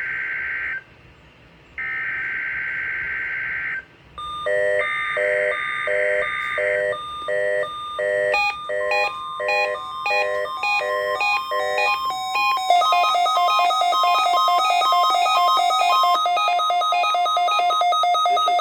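NOAA Weather Radio test alert: the SAME digital header's raspy data bursts, repeated with short gaps. From about four seconds in, pulsed electronic beeps follow, then the steady 1050 Hz warning alarm tone, and from about twelve seconds in a continuous multi-tone alarm sound.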